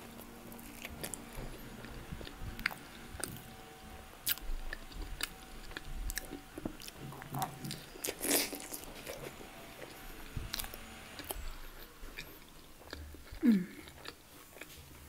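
Close-up chewing and crunching of a crispy Yorkshire pudding, with scattered sharp crackles and wet mouth clicks. A short falling vocal hum comes near the end.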